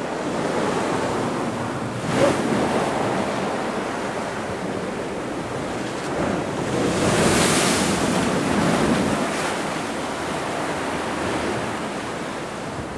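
Storm-surge waves breaking over a sea wall and rushing across a flooded promenade, a continuous churning surf with a louder surge about seven seconds in. Gale-force wind buffets the microphone.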